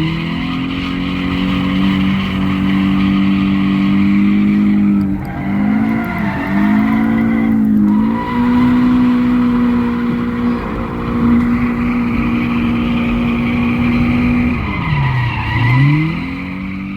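Car engine held at high revs with tyres squealing, the revs dipping briefly twice and then falling sharply and climbing back near the end.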